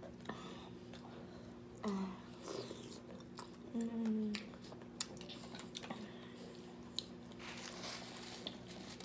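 Close-up eating sounds of shellfish being chewed: wet chewing and lip smacking with small clicks, and a couple of short hummed 'mm's at about two and four seconds in. A paper-napkin rustle near the end as hands are wiped.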